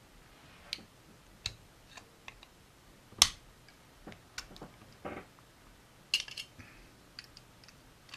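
Scattered small metal clicks and clinks of a just-picked lock being handled as it is taken apart. One sharper knock comes about three seconds in, and a quick cluster of clicks about six seconds in.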